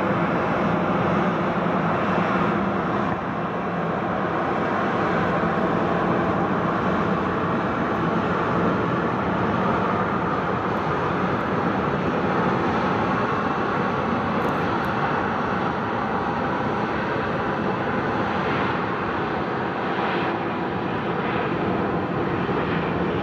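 Boeing 747-400's jet engines idling steadily: a constant rushing hum with steady tones running through it.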